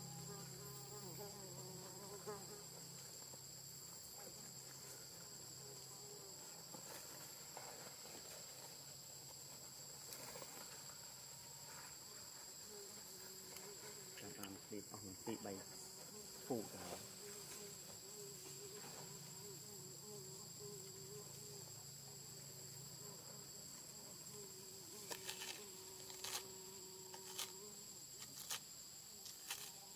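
Insects chirring steadily at two high pitches, with a few faint clicks or taps near the end.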